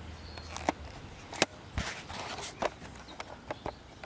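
Footsteps on concrete and light knocks and clicks from handling the tiller: about eight short, scattered sounds. No engine is running yet.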